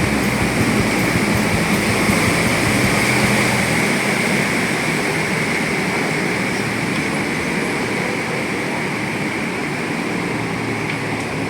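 Passenger canal boat under way: the engine running with a steady rush of water and wind noise; the deep rumble drops away a few seconds in.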